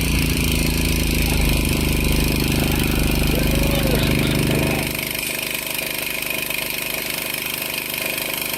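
An engine idling steadily; about five seconds in, its low rumble fades and it runs on more quietly.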